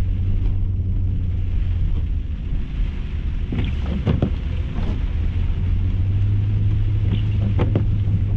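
Range Rover cabin on a rough dirt road: the engine and tyres make a steady low drone. The windshield wipers sweep across the wet glass with brief swishes and knocks about halfway through and again near the end.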